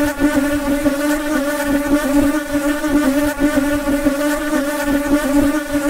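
Flies buzzing: a loud, steady wingbeat drone that wavers slightly in pitch.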